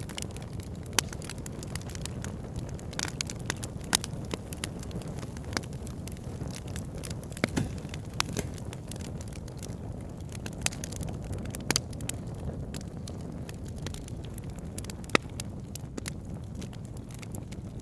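Wood campfire burning: a steady low rumble of flames with frequent, irregular sharp crackles and pops, a few of them much louder than the rest.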